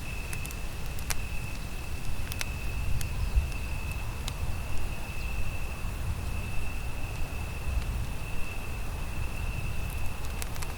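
Campfire crackling, with sharp pops scattered irregularly over a low steady rumble. A steady high-pitched insect trill runs underneath.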